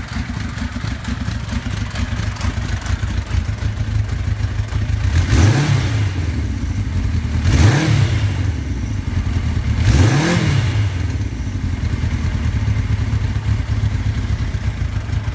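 Kawasaki Zephyr 1100's air-cooled inline-four engine idling and blipped three times, a couple of seconds apart, the revs rising and falling quickly each time. It runs without any bad abnormal noise, which the seller takes as a sign that the engine is in very good condition.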